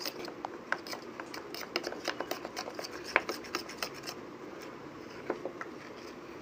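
Metal spoon stirring oil and flour into a paste in a small steel bowl, scraping and clinking against the bowl in quick irregular ticks, with one sharper clink about three seconds in.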